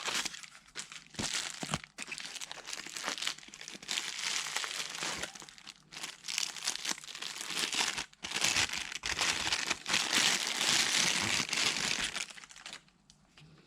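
Packaging crinkling and rustling as a camera lens is unwrapped, a dense run of crackles and small clicks that stops about a second before the end.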